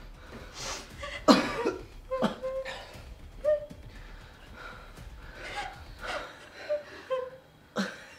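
A young man coughing and gasping for breath in short, irregular fits, with brief voiced sounds between them.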